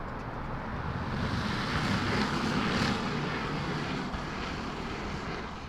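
A passing vehicle: a rushing noise that swells to a peak about two to three seconds in, then fades away.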